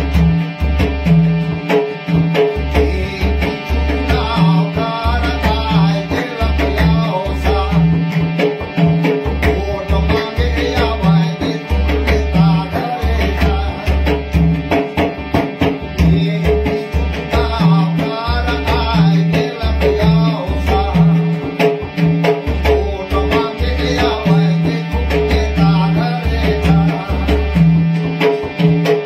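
Harmonium playing a folk song over a steady, deep drum beat, with a man singing along in wavering phrases from about four seconds in.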